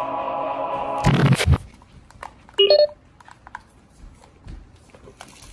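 An electronic toy's sound: a steady chiming tone cuts off about a second in with a brief loud noisy burst, and a short stepped electronic chirp like dialing beeps follows about halfway through. Faint handling clicks come after.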